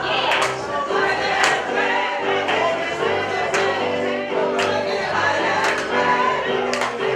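A group of voices singing a gospel-style song together in held chorus notes, with hand claps keeping a beat about once a second.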